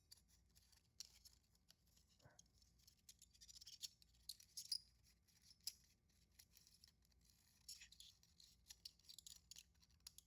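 Faint scattered clicks and light scraping rustles of 16mm film and its plastic take-up spool being handled while the film is attached to the spool.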